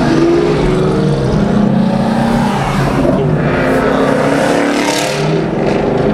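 Car engine running at full throttle, accelerating hard in a street roll race, with a short break and change in pitch about five seconds in, like a gear shift.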